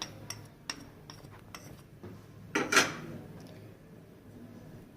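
A spoon clinking and tapping against a bowl: a run of light clicks in the first second and a half, then one louder clatter a little past halfway.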